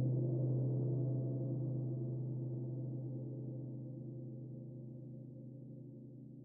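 A deep gong ringing on after a single stroke, its low hum with many overtones fading slowly and evenly.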